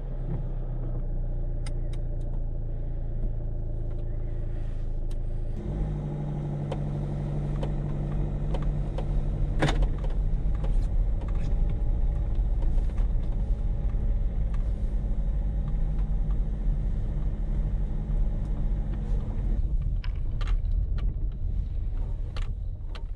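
Car engine heard from inside the cabin, idling, then pulling under load about six seconds in as the car moves off, its note dropping again near the end. Scattered light ticks and taps over the engine.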